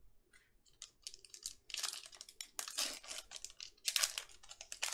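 Foil wrapper of a 2020 Panini Mosaic football card pack crinkling and tearing as it is ripped open by hand, in clusters of short crackles that grow denser and louder towards the end. A few light clicks of trading cards being handled and set down come first.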